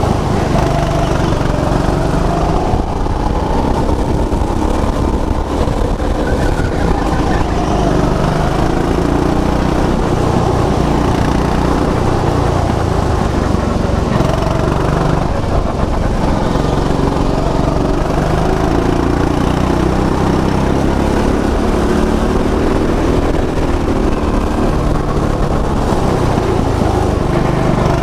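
Go-kart engine running hard around the track, its revs rising and falling steadily without a break.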